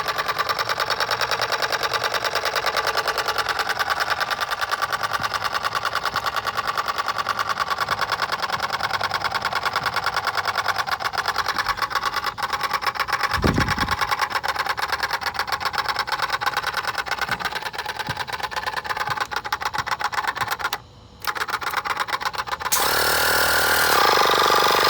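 Portable 12-volt piston tire-inflator compressor running under load while pumping up a car tire: a steady, fast, even pulsing buzz. The sound cuts out very briefly about 21 seconds in, then changes and gets louder near the end.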